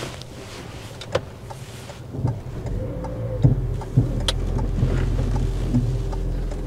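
Inside a car cabin: a low steady hum, then from about two seconds in a rising rumble of engine and tyres as the car pulls away, with a few sharp clicks.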